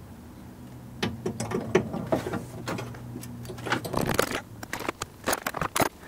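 Irregular clicks, taps and knocks of metal parts and hand tools being worked in a car's pedal box under the dashboard as a brake pedal is fitted, with a longer, louder clatter about four seconds in. A low steady hum lies underneath and fades out near five seconds.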